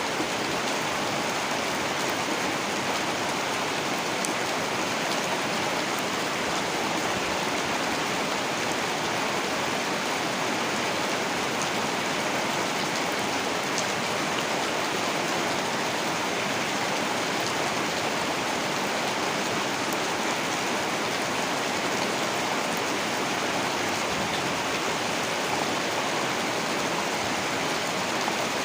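Heavy rain falling steadily in a dense, even hiss, with a few faint drop ticks.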